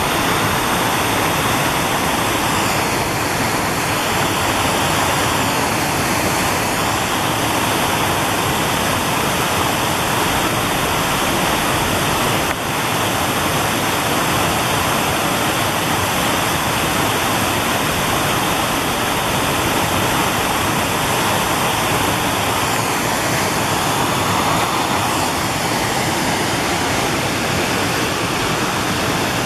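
Woodland brook rushing in whitewater cascades over rock ledges into pools: a steady, loud rush of falling water.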